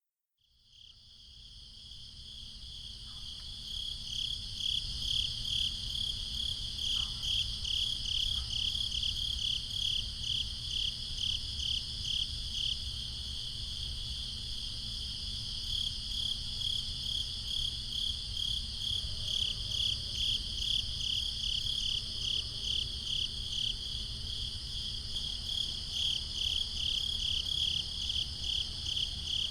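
Crickets chirping: a steady high trill with loud rhythmic chirps repeating about twice a second on top, fading in over the first few seconds.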